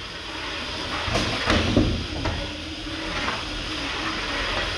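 Antweight combat robots clashing and skidding against each other on the arena floor: a few sharp knocks between about one and two and a half seconds in, over steady background noise.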